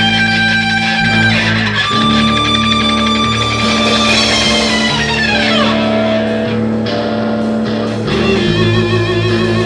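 Live rock band playing an instrumental passage: a sustained, wavering electric guitar lead over a steady bass line, with one note sliding steeply down in pitch about halfway through.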